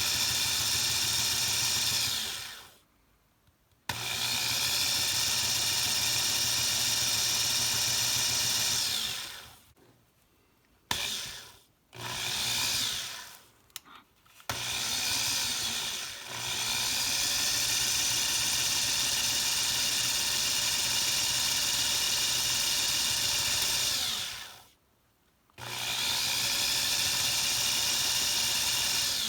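Electric drill with a 9/64-inch bit drilling out a Hot Wheels car's rivet under only the drill's own weight. It runs with a steady whine in several stretches, stopping and starting again several times, with the longest run about ten seconds in the middle.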